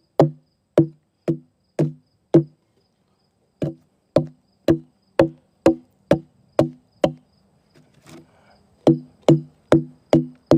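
Hatchet chopping into a log, about two blows a second in three runs with short pauses between them. Each blow is a sharp knock with a short hollow ringing tone. The blows are chipping out the wood between chainsaw cuts to hollow a bench seat.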